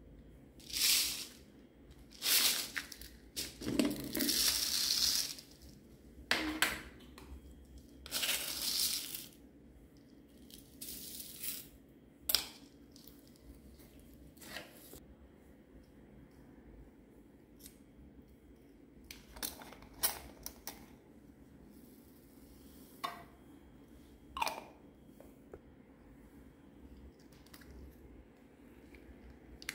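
Short bursts of rustling and pouring, with scattered clicks, as small beads, glitter and plastic trinkets are handled and added to a clear plastic tub. The bursts come thickly in the first ten seconds, then give way to a few sparse clicks.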